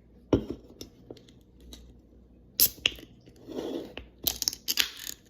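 Clicks, knocks and short hissing bursts as a Pepsi soda container is handled and opened.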